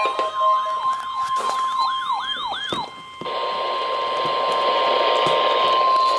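NOAA Weather Radio warning alarm tone: a single steady 1050 Hz tone, sounding ahead of a warning broadcast. For the first three seconds a wailing, siren-like sound with repeated downward sweeps plays over it. About three seconds in, radio static hiss comes up under the tone.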